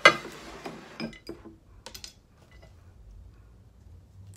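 A brief loud voice-like sound at the start, then a few light clinks of a spoon and chopsticks against a soup bowl in the first two seconds, then only a low hum.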